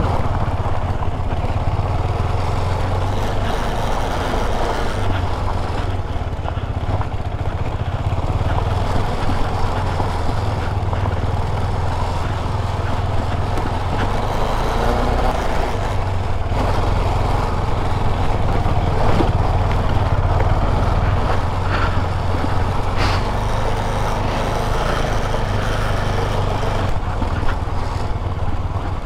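KTM 250 Adventure's single-cylinder engine running steadily as the bike is ridden off-road.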